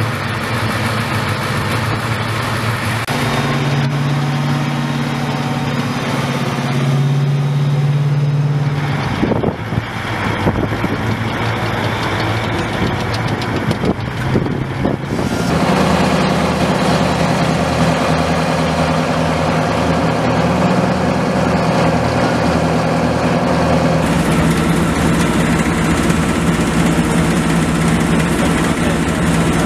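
Heavy military vehicle diesel engines idling, a steady low drone whose pitch and character change abruptly several times, with a rougher, noisier stretch in the middle.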